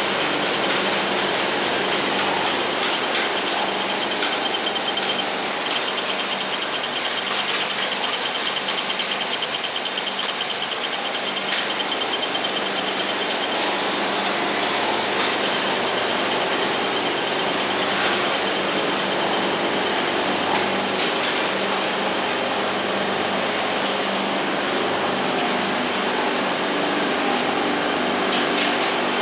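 Steady machine noise of automatic LED die-bonding machines running on a production floor: an even whir with a steady high whine and a low hum, and faint rapid ticking from the working bond heads.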